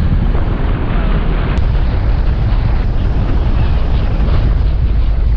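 Vehicle driving along a road: a steady, loud low rumble of the moving vehicle and wind buffeting the camera's microphone.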